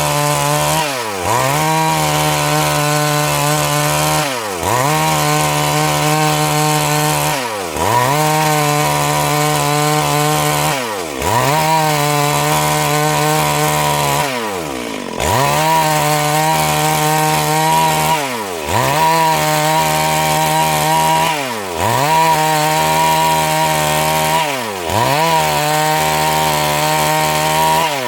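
Stihl MS 382 two-stroke chainsaw running at high revs while ripping a Siris log lengthwise into boards. Its engine speed dips and climbs back up about every three seconds, about eight times.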